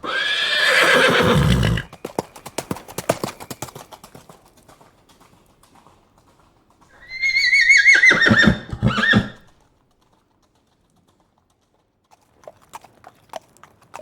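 A horse gives a loud blowing call, then galloping hoofbeats clip-clop and fade away. A few seconds later it whinnies with a quavering pitch that drops into lower, shorter pulses, and faint hoofbeats come back near the end.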